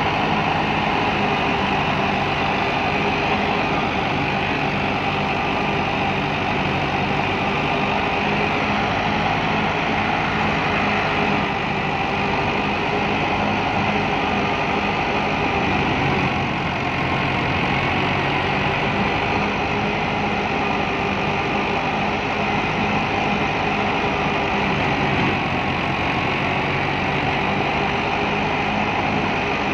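Massey Ferguson 265 tractor's three-cylinder Perkins diesel running steadily under load, driving a wheat thresher, with the thresher's drum and blower going with it. The engine note dips briefly about halfway through, then recovers.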